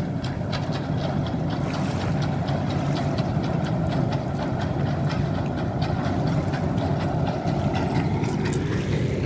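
Amphibious excavator's diesel engine running steadily, with a light rapid clatter over the low engine note.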